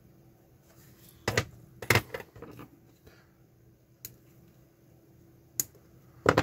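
Flush cutters snipping component leads off a small circuit board: a handful of sharp clicks, the loudest about one, two and six seconds in.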